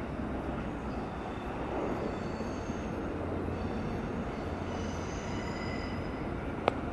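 Train running through the station with a steady rumble, and a faint high squeal from the wheels twice. A sharp click near the end.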